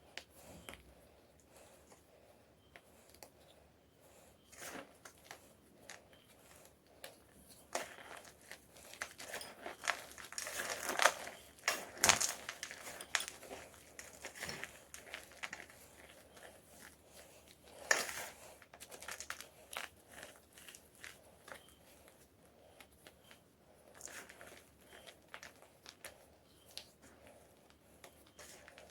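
A circle-shaped block of homemade gym chalk being crushed, crunching and crumbling in a run of short, sharp crackles. The crackling gathers into a louder burst about a third of the way through, and there is one more strong crunch a few seconds later.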